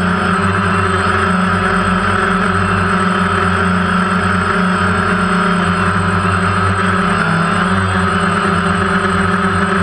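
Multirotor drone's motors and propellers running with a steady buzz, heard close up from the aircraft itself; the pitch holds level throughout.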